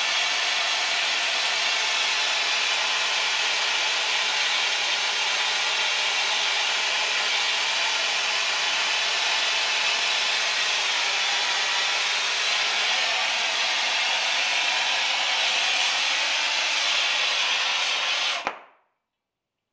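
Air-acetylene hand torch flame hissing steadily as it heats the edge of a 1080 steel draw-knife blade toward cherry red for hardening. A click near the end, and the sound cuts off abruptly.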